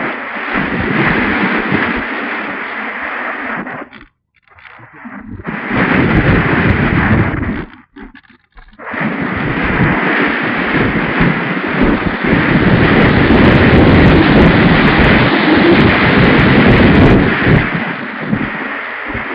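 Loud wind and propeller noise rushing over the onboard camera microphone of a Multiplex EasyStar RC plane in flight, driven by a brushless motor on 6S. The rush cuts out almost to silence twice, about four and eight seconds in, then returns.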